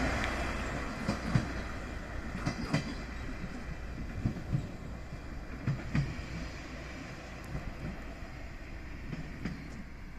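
Diesel railcar moving away along the line, its wheels clicking over rail joints in pairs about a third of a second apart over a low rumble. The sound grows steadily fainter.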